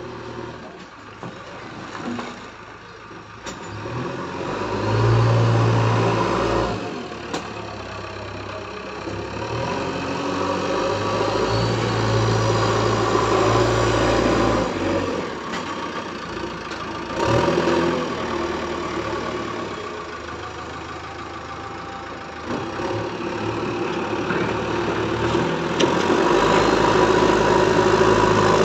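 JCB backhoe loader's diesel engine running and revving up and down under load as the machine digs, with louder surges several times and an occasional sharp knock.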